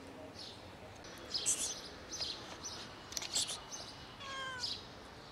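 Small birds chirping in short, repeated high bursts, with a stray tabby cat giving one short meow about four seconds in.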